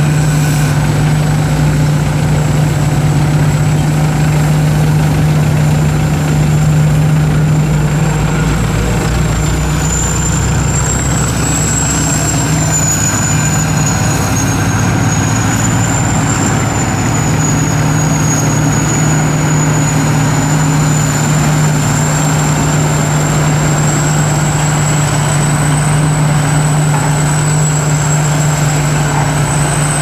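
Sakpattana KM-D 4.1 rice combine harvester cutting and threshing rice, its 225 hp turbocharged engine running steadily with a constant deep drone. A thin high whine sits above it.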